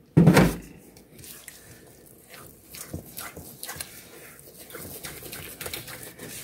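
Silicone spatula stirring thick cornbread batter in a stainless steel mixing bowl, a soft scraping stroke about three times a second. Just after the start a single short, loud sound stands out above the stirring.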